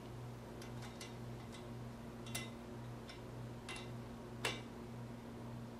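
Faint, irregular small clicks from the collar and washer on the back of the swift's shaft being worked and tightened by hand, two of them sharper than the rest, over a steady low hum.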